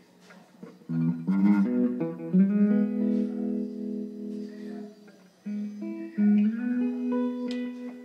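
Guitar played through effects: it is quiet at first, then a few plucked notes come in about a second in and settle into sustained, ringing chords. The sound drops out briefly about five seconds in, then more notes and a held chord follow.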